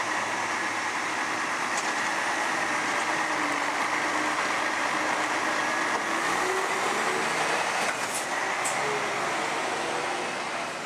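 Scania P400 front-lift garbage truck's diesel engine running as the truck pulls away and drives past, its note rising as it accelerates, then dropping off slightly in level near the end as it moves away.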